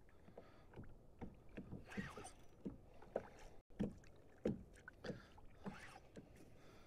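Small waves lapping against a fishing kayak's hull on a calm sea: faint, irregular soft slaps and splashes.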